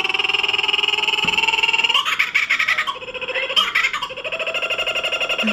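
Recorded kookaburra call played through a phone's speaker: a fast run of repeated cackling notes, with two louder harsh bursts partway through.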